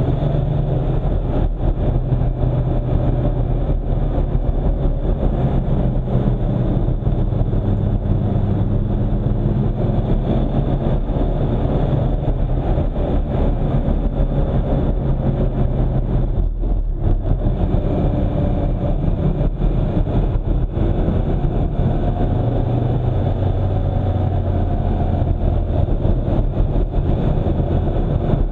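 A road vehicle driving on, its engine and road noise running steadily, the engine's pitch drifting gently up and down, with a brief drop in level about seventeen seconds in.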